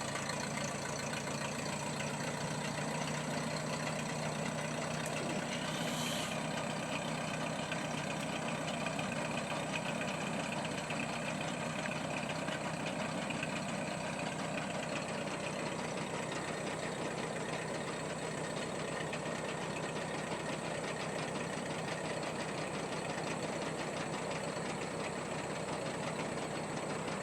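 Ford 8N tractor's four-cylinder flathead petrol engine running steadily, just started after needing the choke. A brief high hiss sounds about six seconds in.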